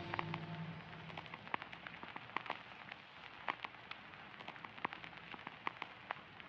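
Scattered sharp crackling pops over a soft hiss, a crackle ambience layer. The last held notes of the slowed, reverb-soaked song die away in the first moment.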